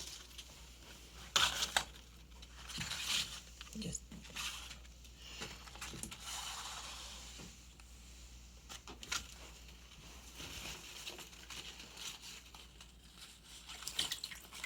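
Faint rustling of ribbon being handled, with a few light clicks and knocks scattered through.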